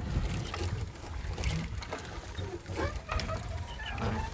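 Wet sinking fishing net being hauled in over the side of a small outrigger boat: rustling mesh and dripping, splashing water, over a steady low rumble.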